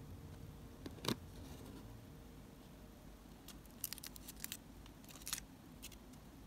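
Small clicks and light crinkles of miniature plastic toy groceries being handled: one sharp click about a second in, then a scatter of soft ticks and crinkles as tiny plastic bags of toy carrots and potatoes are picked up.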